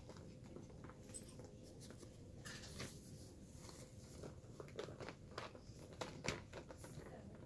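Cloth bath blanket rustling as it is pulled and arranged, with soft knocks from a training manikin's jointed legs being moved and set down on the bed; the sharpest knock comes about six seconds in.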